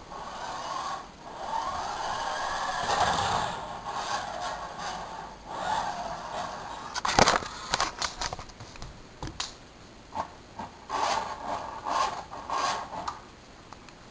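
Toy remote-control car's small electric motor whirring in spurts as it drives across carpet, with scraping and clicks and one sharp knock about seven seconds in.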